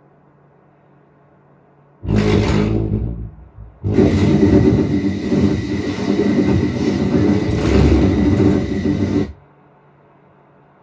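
Loud rumbling film sound effects played through four Klipsch CDT-5800-C II in-ceiling Atmos speakers alone: a burst about two seconds in that dies away, then a longer rumbling roar that cuts off suddenly about nine seconds in, with a faint steady hum before and after.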